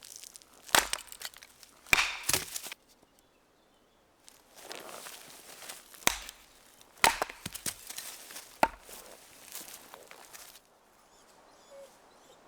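Wood being chopped or split with a blade: about six sharp knocks in irregular groups, with rustling and scraping between the strikes.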